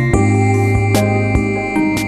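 Background music: sustained synthesized chords with a steady beat.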